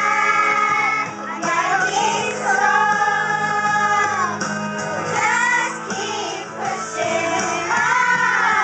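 A group of young girls singing a pop song together in long held notes, with backing music underneath.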